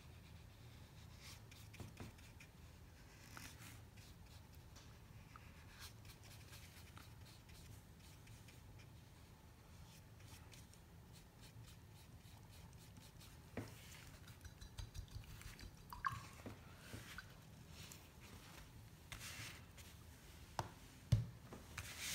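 Faint scratching of a paintbrush working paint into a circle on paper, over a low room hum. In the second half come small clicks and rustles, and a sharper thump near the end.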